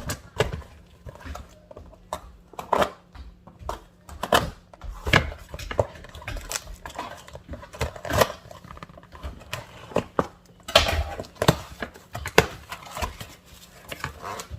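Irregular knocks, clinks and rustling of a box of baking supplies being opened and handled, with a burst of louder rustling and clatter about eleven seconds in.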